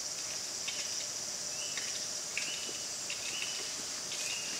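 Steady high-pitched insect chorus of forest cicadas or crickets. From about a second and a half in, a bird gives four short level call notes, about one every second.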